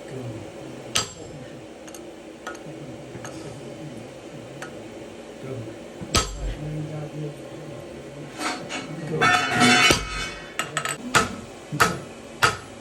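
Hand hammers striking steel on an anvil, each blow ringing. A couple of single clangs, then from about eight seconds in a quick flurry of ringing blows followed by separate strikes about every half second.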